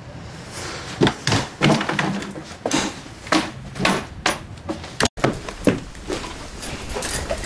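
A house door being unlatched and pulled open: a run of sharp clicks and knocks from the latch and door, broken off suddenly about five seconds in.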